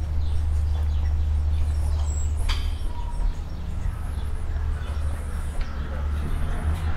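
Outdoor lane ambience: a steady low hum with faint, scattered bird chirps and one sharp click about two and a half seconds in.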